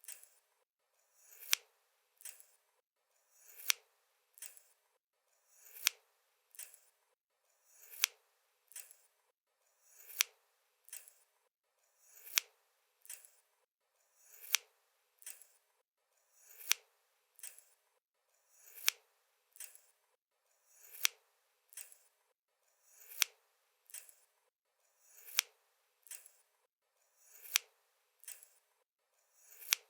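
A pair of scissors opened and closed over and over at a slow, even pace. Every two seconds or so a short sliding scrape ends in a sharp snip, followed about half a second later by a softer click.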